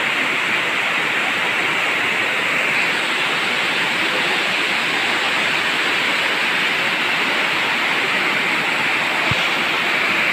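Elephant Falls, a tiered waterfall pouring over a rock face into a pool and on down a rocky channel: a loud, steady rush of falling water with no breaks.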